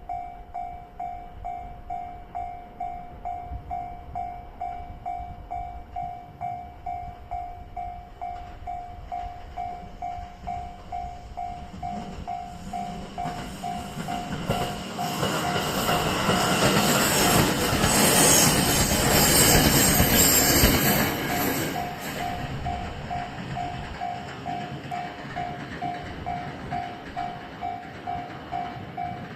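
Japanese level-crossing warning bell ringing steadily at about two dings a second. Partway through, a Joetsu Line up train passes over the crossing: its rail and wheel noise swells, peaks, and fades away while the bell keeps ringing.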